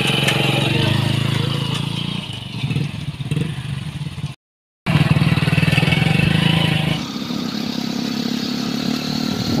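Motorcycle engine running at road speed. The sound drops out completely for about half a second a little before halfway, then comes back.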